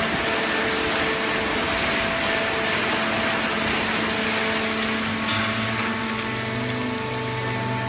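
Automatic horizontal cardboard baling press running: a steady machine hum with several tones over a broad hiss, with a lower hum joining about five seconds in.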